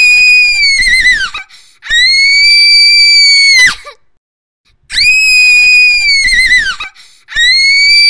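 A girl screaming in long, shrill, high-pitched shrieks: two back to back, a pause of about a second, then two more. Each holds one steady pitch; the first of each pair wavers downward at its end, and the second drops sharply as it cuts off.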